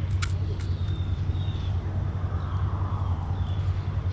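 Steady low hum of a vehicle engine running as it moves slowly along, with a few faint high chirps over it.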